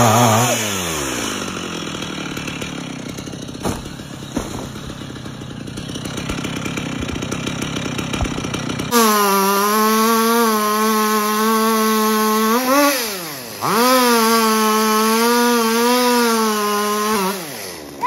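Two-stroke chainsaw dropping from high revs to a rough idle within the first second and idling. About halfway through it is suddenly at full throttle, and twice the revs fall away and climb back up.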